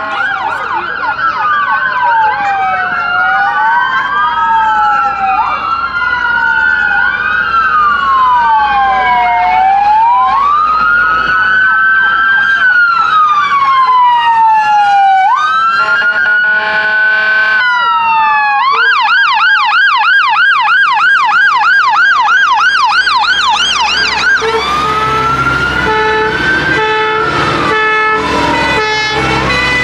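Several emergency vehicle sirens sounding at once as a convoy of fire engines and a rescue Land Rover passes: overlapping slow rising and falling wails, then a fast warbling yelp about two-thirds of the way through. Near the end this gives way to a pulsing two-tone pattern, and a heavy engine rumble grows as a Volvo fire engine passes close.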